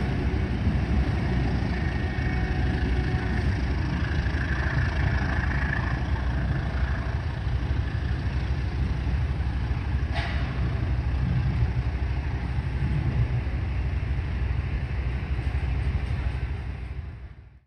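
Diesel locomotive running with a steady low rumble, with one brief sharp sound about ten seconds in; the sound fades out near the end.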